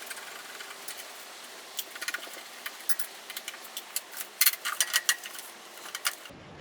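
Irregular light metallic clicks and rattles from a Phillips screwdriver and small screws, thickest about four to five seconds in, as a plastic light lens is unscrewed.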